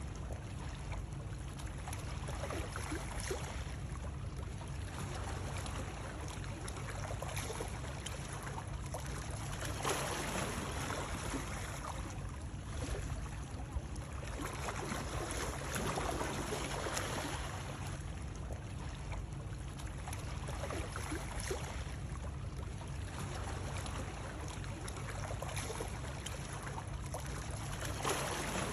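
Continuous water noise used as soothing white noise: a steady wash of moving water over a low rumble, swelling and easing every few seconds.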